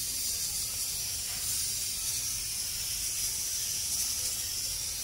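Pan of fish curry simmering on a gas stove: a steady high hiss with a faint low rumble beneath.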